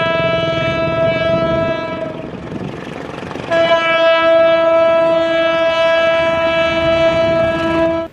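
Horn of a KAI BB 203 diesel locomotive sounding two long blasts, with the diesel engine running underneath. The first blast fades out about two seconds in; the second starts about a second and a half later and is held until it cuts off abruptly.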